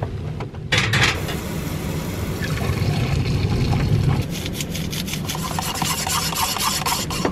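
Hot liquid poured from a small pot into a metal tumbler, starting about a second in, then a spoon stirring in the tumbler with quick metallic clinks near the end.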